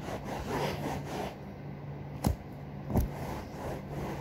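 Hand scrubbing a sofa's surface with toothpaste and a cloth to lift the dark grime: quick back-and-forth rubbing strokes, about three a second, that stop about a second in. Two sharp knocks follow, about two and three seconds in.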